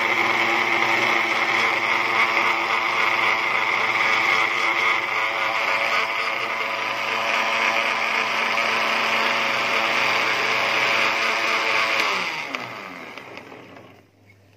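Electric countertop blender (El Araby) running steadily as it blends garlic with lemon juice, vinegar, water and salt into a thin sauce. About twelve seconds in it is switched off and the motor winds down, falling in pitch until it stops.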